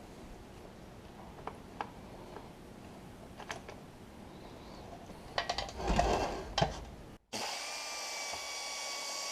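Light metal clicks and a short clatter of hardware being handled, with a thump about six seconds in. Then, after a sudden break, a power drill runs at steady speed, driving a fastener on the seat's hardware.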